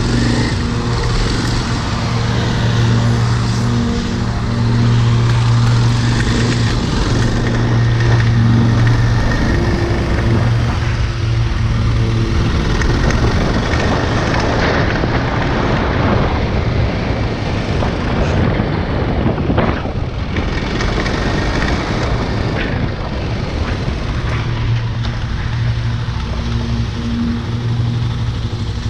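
Motorcycle engine idling steadily, then pulling away and running along the street with wind rushing over a helmet-mounted microphone for about ten seconds, then settling back to a steady idle near the end.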